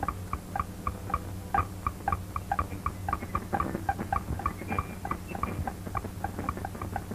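Cartoon walking-beat sound effect: short, bright pitched taps, about four a second, keeping time with a walk, over the steady low hum of an old optical soundtrack.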